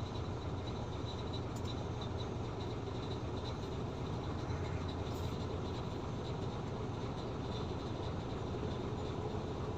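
Caterpillar 320 excavator's diesel engine running steadily with a low hum.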